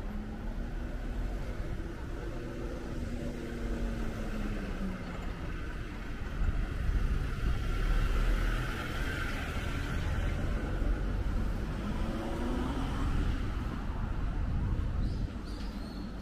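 A car going by on a city street, its engine and tyre noise swelling to its loudest around the middle and then easing off, over a steady low rumble.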